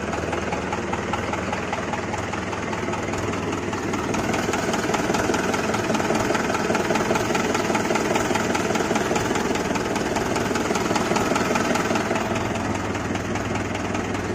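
Small electric gear motor of a home-made toy tractor running steadily as it pulls a loaded trolley through loose soil. The motor gets a little louder from about four seconds in.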